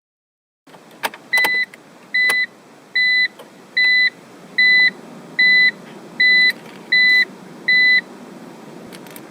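A BMW's electronic warning chime beeping nine times at an even pace, a little faster than once a second, each beep a short steady tone. A few sharp clicks come just before the beeps start and again near the end, over a low hum.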